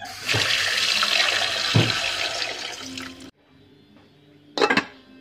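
Water from a kitchen tap running into a metal cooking pot, stopping suddenly after about three seconds. A short knock follows a little over a second later.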